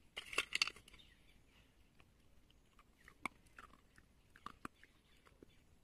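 A puppy chewing a food treat: a quick run of crunches in the first second, then a few scattered single crunches.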